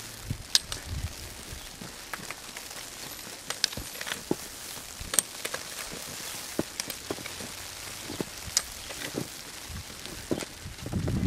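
Heavy wet snow falling, landing in scattered soft ticks and crackles over a faint hiss, with a low rumble building near the end.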